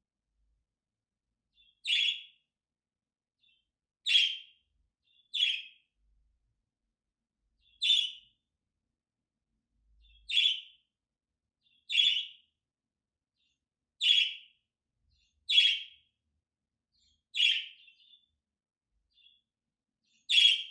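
Budgerigar giving short, single chirping contact calls, about ten of them, one every couple of seconds with silence between.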